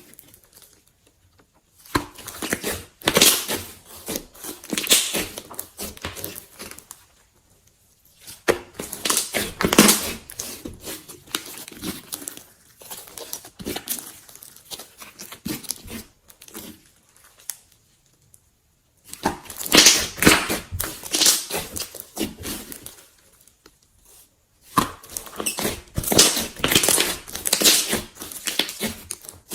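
Slime being squished and pulled by hand close to the microphone, with dense crackles and small pops. It comes in four runs of several seconds each, with short near-silent pauses between them.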